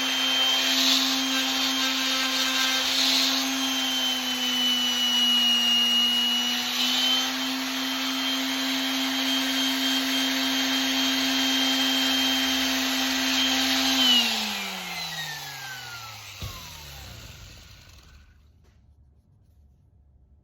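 Electric sander running steadily, sanding the brass putter head with 1500-grit paper, with a rubbing hiss over the motor's hum. About fourteen seconds in it is switched off and its pitch falls as it winds down to a stop.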